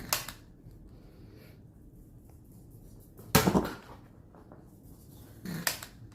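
Three short, sharp knocks or clacks in a small room, a few seconds apart; the middle one, about three and a half seconds in, is the loudest and comes as a quick double hit.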